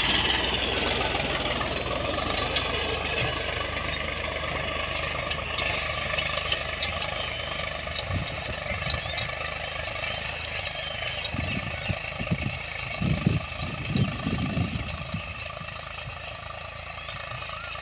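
Sonalika diesel tractor engine running steadily as it pulls a seed drill through tilled soil, slowly fading as it moves away. A few brief low bumps come about two-thirds of the way through.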